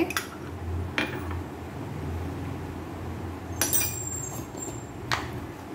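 Kitchenware clinking: about five short, sharp clinks and knocks spread across a few seconds, a pair about three and a half seconds in ringing briefly, as glass and ceramic dishes are handled. A low steady hum runs underneath.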